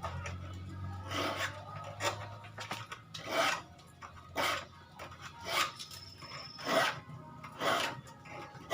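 Steel hand file rasping across the teeth of a handsaw in repeated strokes, about one a second, sharpening the dull teeth.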